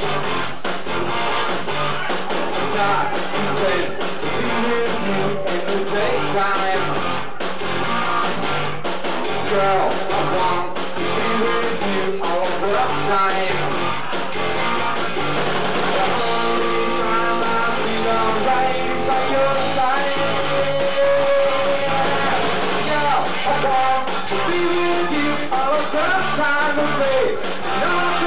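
Live rock band playing an amplified song with electric guitar, bass and drums, with a steady beat throughout.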